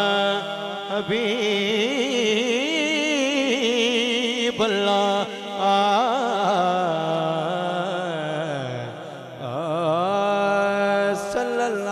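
A man's solo voice singing a durood (salawat on the Prophet) as part of a naat, in long, ornamented held notes that waver and glide, taking a breath and starting a new phrase about nine seconds in, with a steady low drone underneath.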